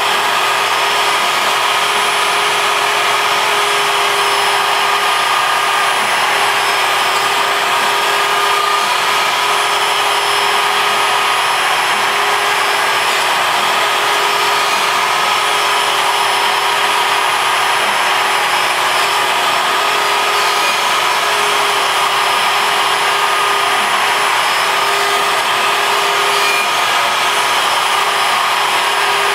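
ShapeOko CNC router's spindle running at speed as its end mill cuts MDF, together with a vacuum drawing sawdust through the dust shoe. A steady sound with a constant whine, unchanging throughout.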